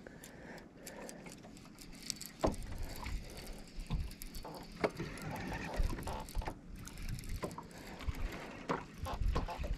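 Water lapping and slapping against a boat hull, with wind buffeting the microphone in low rumbles and scattered clicks and knocks from a baitcasting rod and reel being worked.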